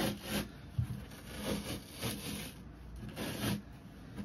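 Carpet being peeled and torn off a wooden speaker cabinet where it is held by adhesive: a series of irregular rasping rips, with a low thump about a second in.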